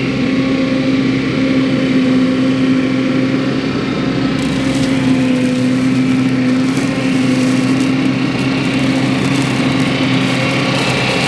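Mini skid steer engine running steadily at high speed driving the Baumalight forestry mulcher; from about four seconds in, a crackling, chattering noise joins it as the mulcher's spinning teeth start chewing into material.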